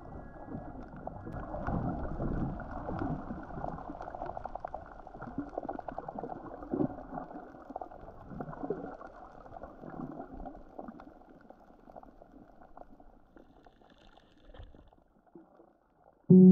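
Muffled underwater water noise: gurgling and bubbling with a fine crackle running through it, dulled in the high end the way sound is when picked up under water. It fades out about a second before the end.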